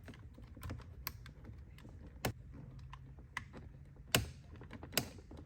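Irregular sharp plastic clicks and light rattling as a wiring connector is pushed down on its locking tab and wiggled out of a truck door's control module.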